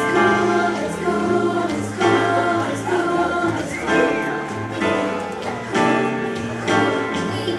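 Music: a gospel-style song sung by several voices over a bass line, each note held about a second.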